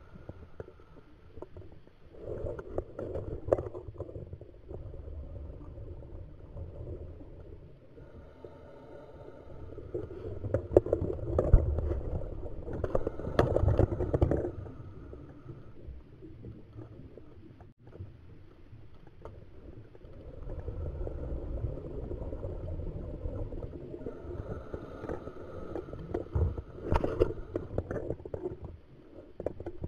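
Scuba diver breathing through a regulator underwater: long bursts of exhaled bubbles rumble past the camera roughly every ten seconds, with a thin steady hum on each inhale in between.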